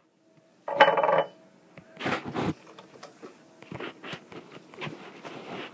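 Close handling and rustling noises: a short, loud scrape about a second in, then a string of softer rustles and small knocks.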